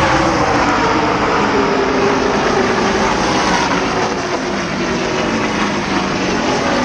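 A pack of ARCA stock cars' V8 engines at full racing speed passing down the frontstretch: many engines running together, their pitch falling as the pack passes and pulls away. Single cars follow a few seconds later.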